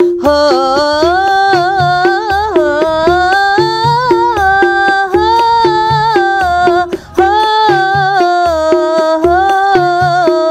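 Shalawat music between sung verses: one sustained, gliding melody line over a steady, repeating low beat, with a short break about seven seconds in.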